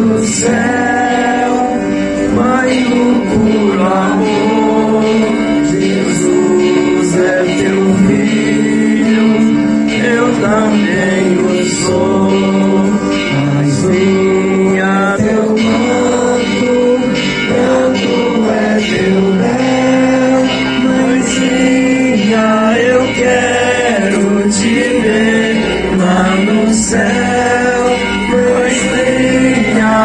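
Devotional hymn sung by a man's voice over steady sustained accompaniment.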